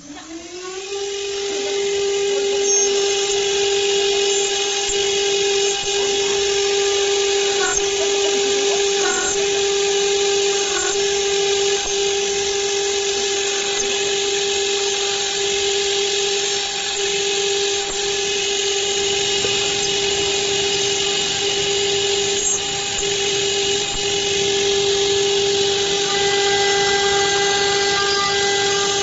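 CNC router spindle winding up to speed in the first second, then running at a steady high whine as its end mill cuts a clamped metal plate, with a hiss of cutting noise over the tone.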